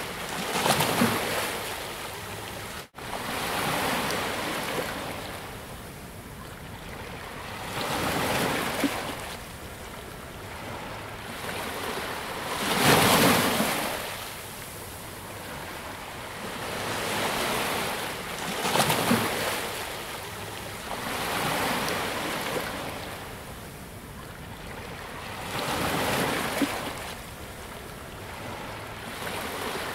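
Sea waves breaking and washing up a beach, a surge every three to five seconds, with a momentary dropout about three seconds in.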